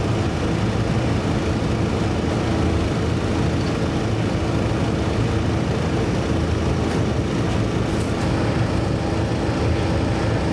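Steady engine drone with a constant hum; it holds an even pitch and level throughout, with no revving.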